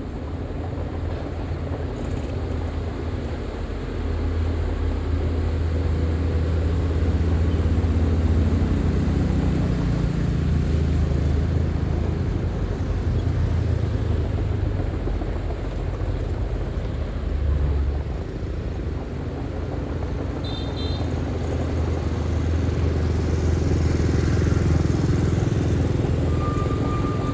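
Heavy diesel earthmoving machinery working: a deep engine rumble that rises and eases with the load. A brief high chirp comes about two-thirds of the way through, and a short high beep near the end.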